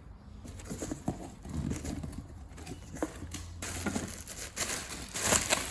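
Scattered knocks, taps and rustling of an item being handled, over a low steady hum, with a hissier noise coming in a little past halfway.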